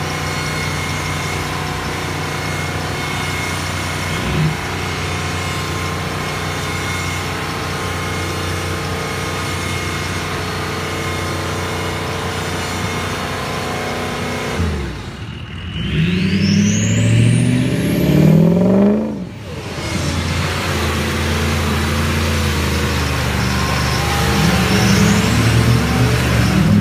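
Pickup truck engine running steadily, then revved up and down several times about halfway through, with a short rising whistle, before settling back into a steady run.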